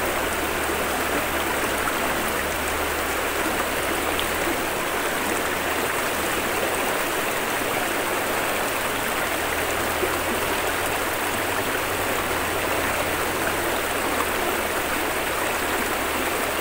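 A shallow rocky river flowing, its water running and splashing over stones in a steady, even rush.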